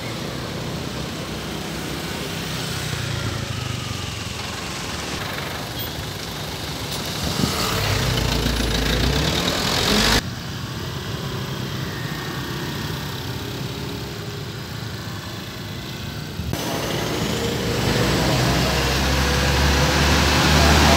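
Road traffic and engine noise across several cut-together shots, ending with a heavy tractor-trailer truck's diesel engine running close by, a low hum that grows louder over the last few seconds as the truck passes.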